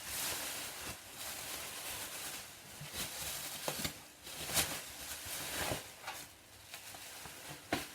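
Protective packing material rustling and crinkling as it is pulled off a motorcycle fuel tank, with several sharp crackles along the way.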